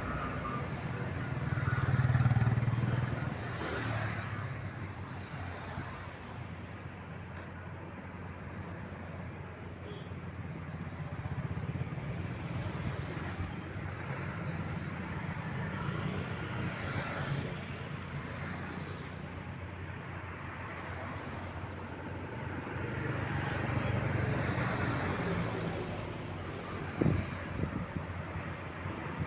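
Road traffic going by on a highway: a steady rumble of engines and tyres, with louder vehicles passing about two seconds in and again near the end. A short sharp knock sounds near the end.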